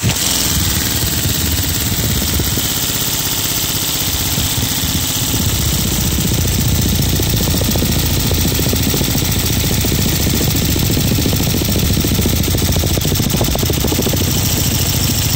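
Lego pneumatic V8 engine with a flat-plane crank, running on compressed air at about 40–45 PSI. It gives a steady, rapid rumble over a constant hiss of exhausting air.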